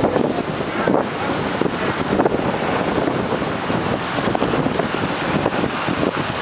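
Strong wind blowing across the microphone: a constant loud rushing noise that surges and eases slightly in gusts.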